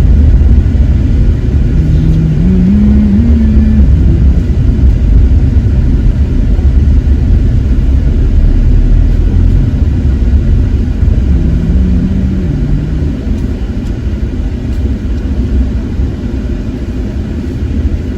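A car being driven slowly, heard from inside the cabin: a steady low rumble of engine and road noise. The engine note rises twice, as if pulling away or speeding up.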